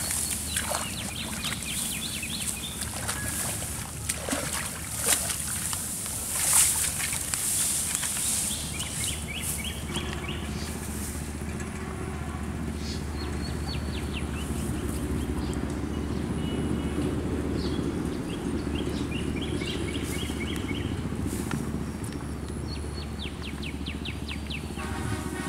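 Outdoor pond-side sound: brief splashes and rustles in the first several seconds, then birds calling again and again in short trills, over a steady low hum.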